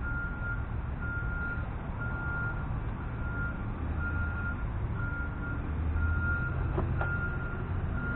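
Garbage truck's reversing alarm beeping about once a second, one steady high tone, over the low rumble of the truck's engine.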